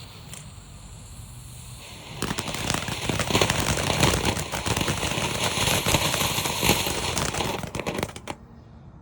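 Consumer firework fountain spraying sparks: a dense crackling hiss starts suddenly about two seconds in, runs for about six seconds, and stops abruptly near the end as the fountain burns out.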